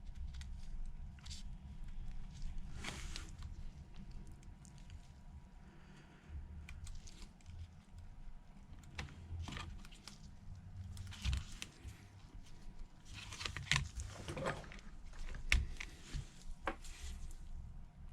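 Scattered small clicks, taps and rustles of hand tools and parts being handled on a workbench while a phone's display flex connector is unplugged and reseated, over a steady low hum.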